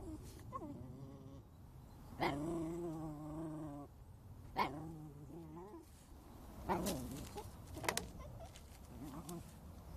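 A dog whining and yelping, straining to get at a bottle caught out of its reach: a short whine, then a long drawn-out whine, then several sharp yelps.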